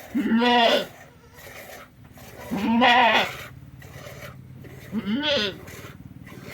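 Goat bleating three times, each call a wavering, pitched bleat under a second long.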